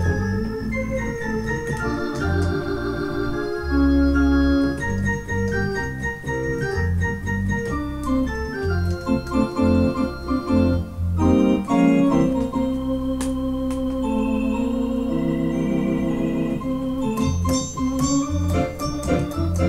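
Electronic home organ played solo: held chords and a melody over a pulsing bass line, with no singing.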